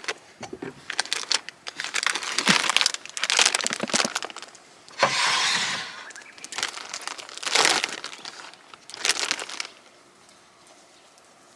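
Bursts of crinkling and crunching, irregular and crackly, with a longer hissing rustle about five seconds in; the sounds stop shortly before the end.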